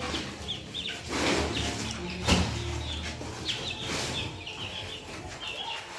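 Chickens clucking and chirping, many short calls one after another, with a few brief noises mixed in.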